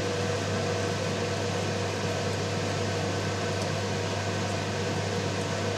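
Steady hum and whir of a running kitchen appliance's fan motor, even throughout with a faint steady tone.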